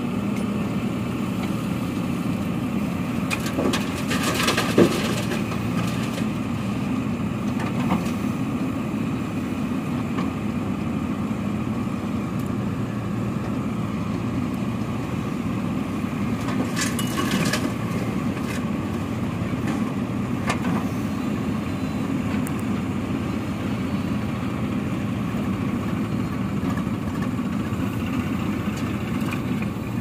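JCB backhoe loader's diesel engine running steadily under load while digging and loading gravel. Gravel clatters in two short bursts, a few seconds in and about halfway through, as the bucket bites the pile and dumps into the steel tractor trailer.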